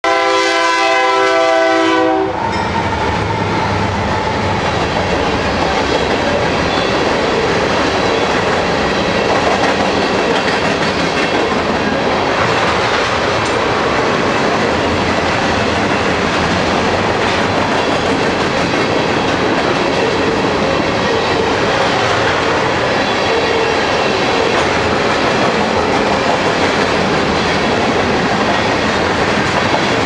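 The horn of a Union Pacific GE AC4400CW freight locomotive sounds a chord for about two seconds and cuts off sharply. Then comes the steady rumble and wheel clatter of the train passing at speed: first the locomotives, then a long line of tank cars rolling over the rail joints.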